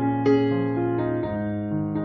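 Soft background piano music: a few notes and chords struck and left to ring on.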